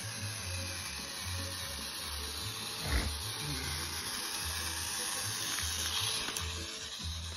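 Battery-powered Thomas & Friends toy trains running along plastic track with a steady motor whir, over background music, with a single knock about three seconds in.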